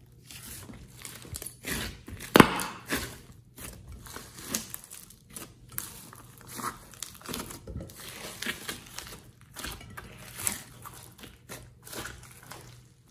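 Glossy slime being stretched, squeezed and kneaded by hand: irregular sticky clicks, pops and squelches, the loudest about two and a half seconds in.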